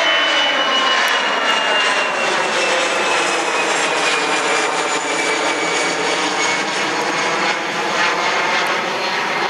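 Airbus A320 jet engines passing overhead and climbing away: a steady roar with a high whine that falls slowly in pitch as the airliner moves off.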